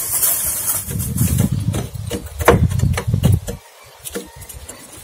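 Aluminium foil crinkling as an onion is wrapped in it, with several sharp crackles, over a steady low rumble.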